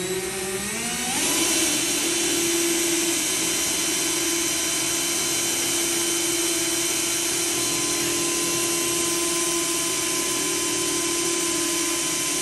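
Cordless drill drilling into the sheet-metal trunk lid of a Honda Accord. Its motor whine rises in pitch over about the first second as it comes up to speed, then holds steady.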